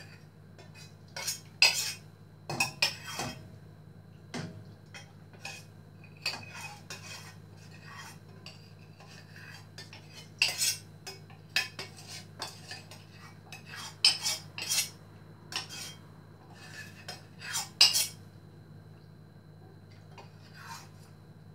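Cooking utensil clinking and scraping against a stainless-steel pot as chicken soup is stirred, in irregular knocks, over a steady low hum.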